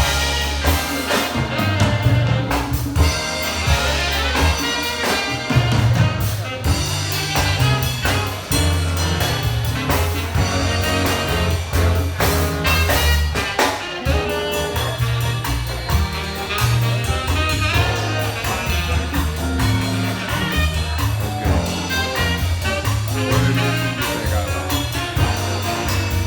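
A big band playing a jazz number live: horns over a steady line of bass notes and drum-kit hits.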